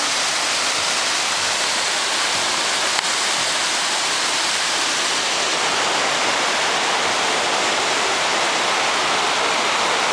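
Steady rushing of river water pouring over rocks below a footbridge.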